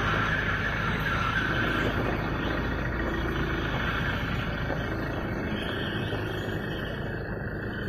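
Electric-motor-driven truck tyre sidewall cutter running steadily, turning the radial tyre on its rollers while the blade cuts through the rubber sidewall, with a squeal that grows fainter after about five seconds.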